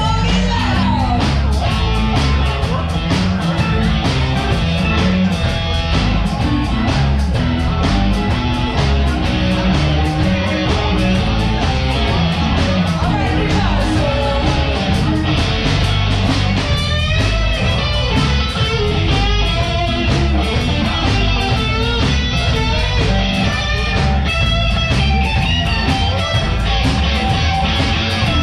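Live blues-rock band playing: electric guitars over bass and a drum kit keeping a steady beat, with bending lead lines in the second half.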